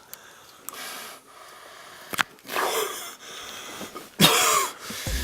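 A man wheezing with strained, gasping breaths that build to a loud sneeze about four seconds in.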